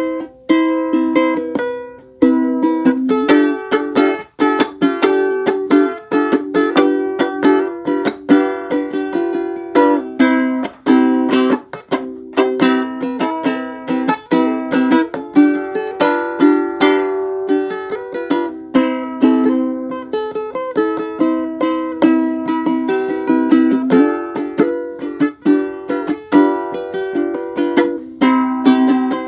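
Ukulele strummed continuously through a simple chord progression, in a steady rhythmic pattern of quick strokes.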